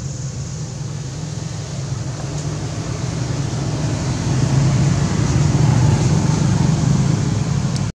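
Steady engine hum of a passing motor vehicle, growing louder about halfway through.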